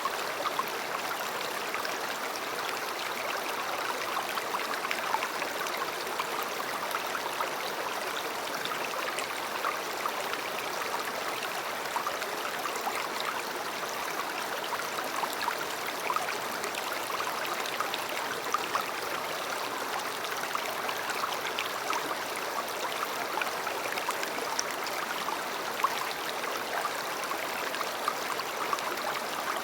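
A river flowing over stones: steady rushing water with a constant patter of small splashes and trickles.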